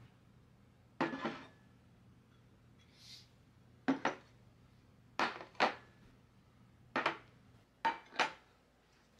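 Bowls and plates being set down one after another on a wooden coffee table: about ten sharp knocks and clinks, mostly in pairs, each ringing briefly.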